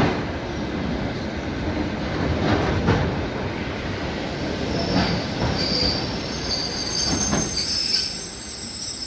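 ED4M electric multiple unit pulling in and braking: a steady rumble of the train with a few knocks from the running gear. About halfway through a high-pitched squeal of wheels and brakes sets in and grows toward the end as the train slows.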